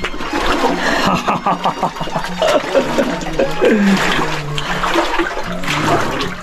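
Water splashing and sloshing in a shallow underground karez channel as someone wades through it, with many short irregular splashes echoing in the narrow rock tunnel.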